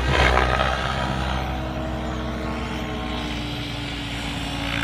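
Electric radio-controlled 3D helicopter flying: its electric motor and spinning rotor blades give a steady whine that sinks slightly in pitch.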